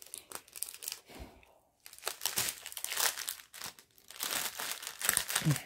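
Clear plastic wrapper crinkling in bursts as a strip of diamond-painting drill bags is handled and opened, with a short pause about a second and a half in.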